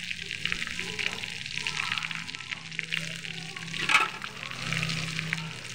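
Batter-coated paneer cubes deep-frying in hot oil, the oil sizzling with a steady dense crackle, and one louder pop about four seconds in.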